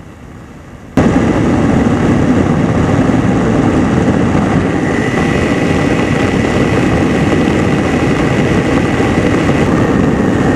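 Two-stroke engine and propeller of an ultralight aircraft running steadily in flight, mixed with wind rush. It cuts in abruptly about a second in, after a quieter opening.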